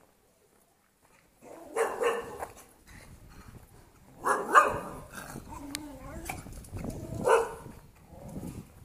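A dog barking in three loud bouts a couple of seconds apart, with quieter yelps between them.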